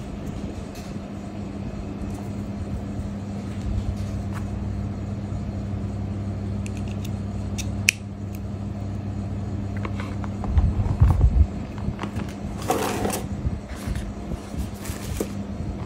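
Handling noise of a phone's USB charging cable and charger brick over a steady low hum: small clicks as the cable is handled, a sharp click about eight seconds in as the cable's plug is pushed into the charger, dull knocks on the table a little later, then a rustle as the packaging tray is moved.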